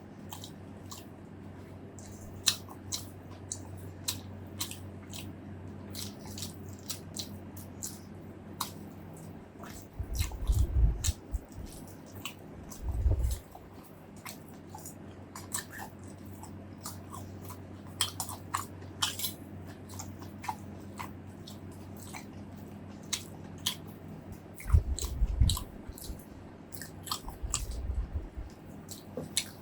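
Close-miked eating sounds of a person chewing and biting into braised pork ribs, rice and fresh vegetables: a steady run of sharp wet mouth clicks and crunches, with a few dull low thumps about ten, thirteen and twenty-five seconds in.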